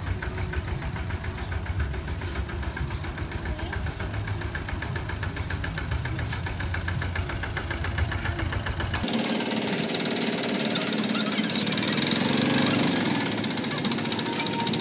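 Kubota walk-behind hand tractor's single-cylinder diesel engine running with a steady, fast knocking chug while it pushes soil and gravel with a front dozer blade. About nine seconds in the sound changes abruptly: the deep chugging drops away and a brighter, noisier clatter takes over.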